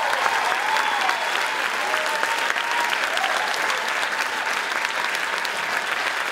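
Theatre audience applauding steadily: dense, even clapping with a few faint voices rising and falling in the crowd.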